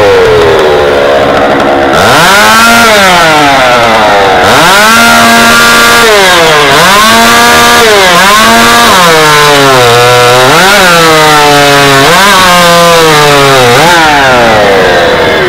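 Stock two-stroke chainsaw running at full throttle through a log, its engine pitch sagging under load and climbing back again and again.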